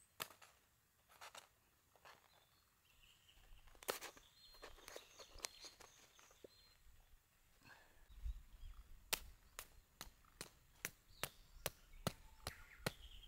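Hammer driving pins through a weed-control sheet into the ground, pinning the sheet down: a few scattered knocks, then an even run of strikes about two a second in the second half.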